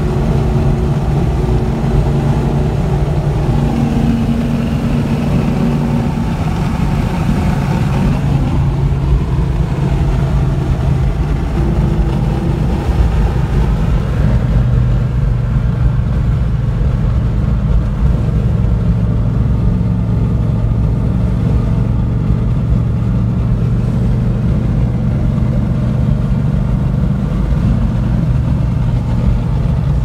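Car engine and exhaust drone with road noise, heard from inside a car cruising on a highway. The pitch of the drone shifts a few times, most noticeably about eight seconds in.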